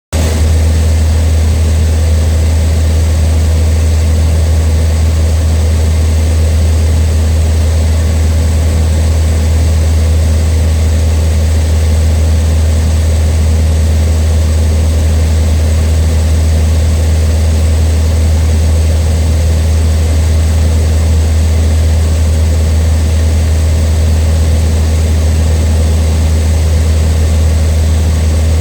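Cessna 152's four-cylinder piston engine and propeller running at a steady power setting, a loud, even, low drone that does not change.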